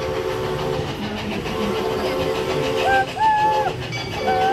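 Steam whistle of Worlds of Fun Railroad No. 33 "Eli", a 1973 Crown Metal Products 4-4-0 replica steam locomotive, sounding repeated blasts. The whistle sounds a chord of several steady notes. About three seconds in, it gives a louder, higher note that rises and falls, then returns to the chord near the end.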